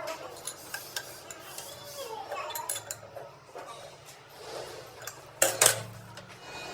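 Metal parts and tools clinking and scraping as they are handled, with two sharp, loud clicks about five and a half seconds in.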